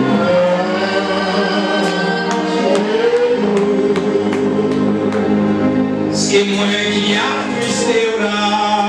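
Gospel worship song: a man sings into a microphone with other voices and sustained instrumental accompaniment, a light tick keeping the beat about twice a second through the middle, and a short hiss of a cymbal or shaker about six seconds in.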